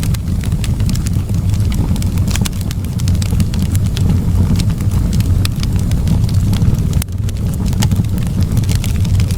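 Fireplace fire crackling: frequent, irregular sharp pops and snaps over a steady low rumble.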